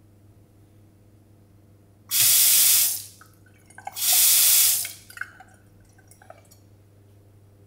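Water from a single-lever faucet splashing into a sink basin in two short runs of about a second each, the tap turned on and off twice, followed by a few drips.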